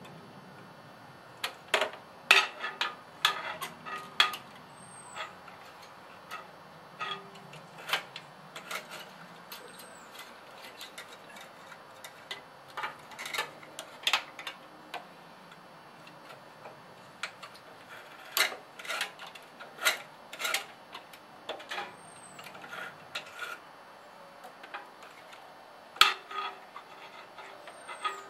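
Irregular small metallic clicks and taps as a throttle cable and its wire end are handled and fitted to the carburetor linkage of a garden tractor's small engine, which is not running. The clicks come in little clusters with short pauses between them.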